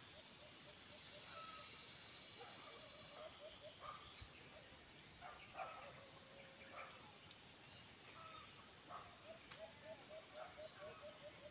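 An insect's short, high buzzing trill, three times about four seconds apart, over wild birds calling with runs of quick repeated low notes.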